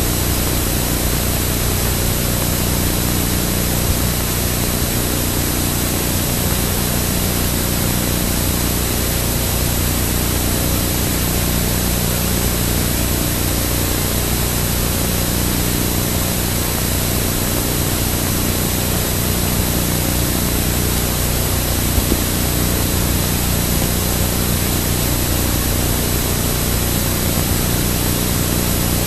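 A vehicle engine running steadily, a constant low hum under an even rushing noise, with no change in speed.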